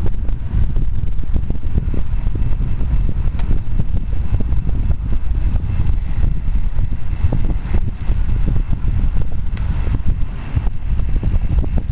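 Wind buffeting the microphone of a camera on a moving bicycle: a loud, steady low rumble that flutters constantly.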